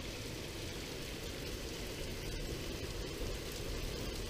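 Torrential thunderstorm rain falling steadily, a continuous even hiss.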